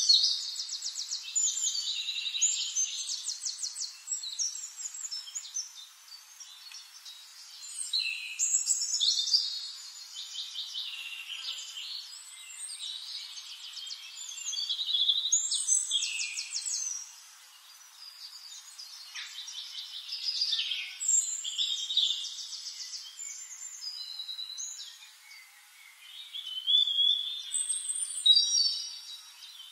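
Songbird singing in high-pitched bouts of fast trills and downward-gliding notes, a new phrase every six or seven seconds with short pauses between.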